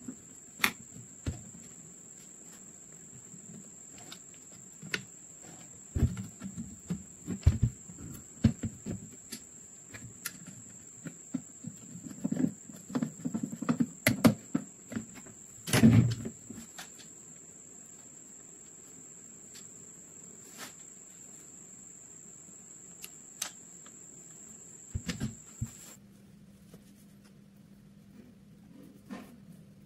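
Screwdriver turning the screws of a Mauser M48 rifle's buttstock sling swivel and buttplate: scattered small clicks, scrapes and taps of metal on metal and wood, with a heavier knock about sixteen seconds in. A faint steady high whine sits behind it and stops a few seconds before the end.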